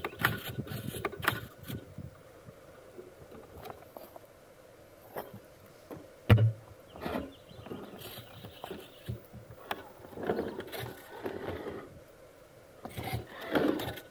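Traxxas TRX-4 Defender RC crawler climbing rocks: its motor and steering servo whirring in short spurts as tyres and chassis knock and scrape against the stones, with a sharp thump about six seconds in.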